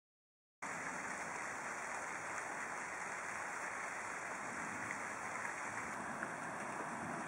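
Steady hiss of falling rain during a thunderstorm, starting abruptly just over half a second in and cutting off sharply at the end.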